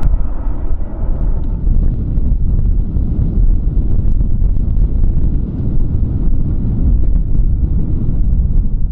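Strong gusty wind buffeting the microphone: a loud, steady low rumble with no clear pitch.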